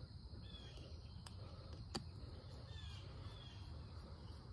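Quiet outdoor ambience: a steady low rumble with a few short bird chirps and a couple of faint clicks.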